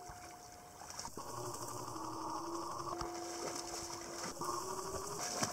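Water sloshing and splashing as a German Shepherd swims and wades through shallow water, the splashing picking up near the end. A faint, thin steady tone comes and goes, held for a second or two at a time.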